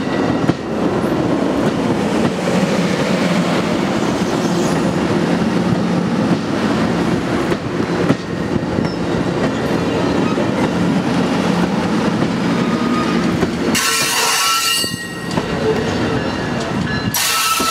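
Amtrak passenger coaches rolling past close by: a steady rumble and rattle of steel wheels on the rails. Near the end come two short bursts of high-pitched wheel squeal.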